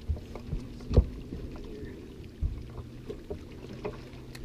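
Knocks and thumps on a fishing boat's deck over a low steady hum, the loudest thump about a second in and another a little before the middle, with small scattered clicks.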